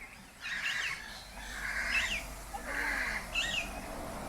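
Aviary birds calling: a harsh, rasping call repeated about once a second, with short sharp chirps over it.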